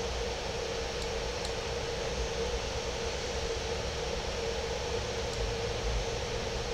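Steady background hiss with a constant mid-pitched hum and low rumble, like a fan or air conditioner running in the room; a couple of faint ticks about a second in.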